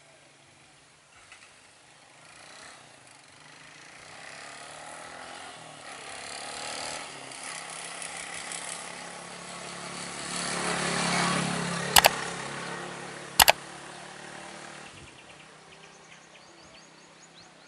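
A motor vehicle passing along the road, its engine and tyre noise swelling over several seconds and then fading away. Two sharp clicks about a second and a half apart come just after it is loudest, and they are the loudest sounds.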